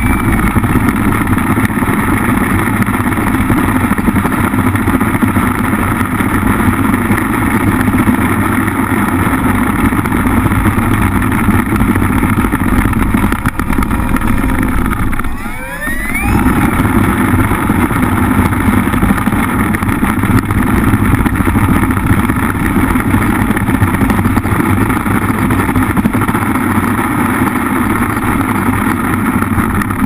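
RC model P-47 Thunderbolt's motor and propeller running at high throttle, heard close up from a camera mounted on the plane. About halfway through the throttle is cut briefly and the pitch rises again as it spools back up; near the end it drops once more.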